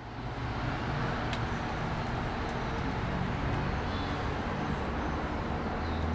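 Steady low rumble with an even hiss, and small birds chirping briefly several times high above it.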